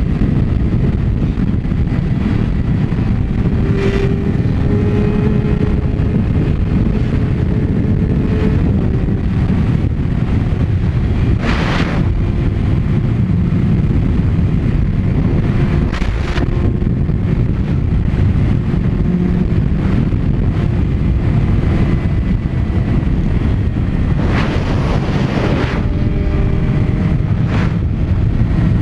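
Heavy wind rushing over a sport bike's microphone at highway speed, with the bike's engine running underneath, its tone rising slowly as it accelerates. A few short louder rushes of noise come through, about five in all.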